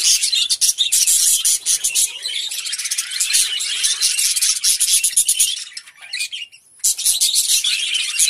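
A large flock of budgerigars chattering and chirping continuously in a dense, high-pitched din. It dies down briefly about six seconds in, then picks up again.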